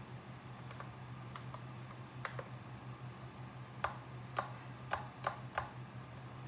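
Switches and buttons on a Jumper T18 radio transmitter clicking as they are worked. A few faint clicks come first, then five sharper clicks about half a second apart in the second half, over a steady low hum.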